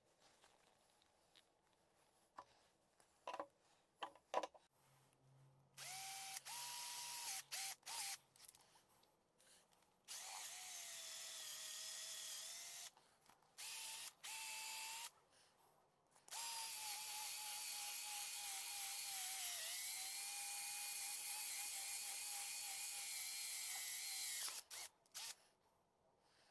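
Cordless drill running a stepped drill bit in several short bursts, then one long run of about eight seconds, boring out a hole in a PVC end cap; the motor's whine sags briefly under load partway through the long run. A few light knocks from handling the parts come before the drilling.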